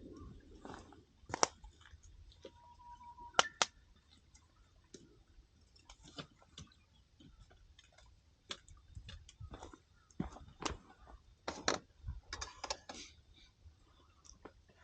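Wood campfire crackling, with irregular sharp pops and snaps, the two loudest early on, and a brief high tone about three seconds in.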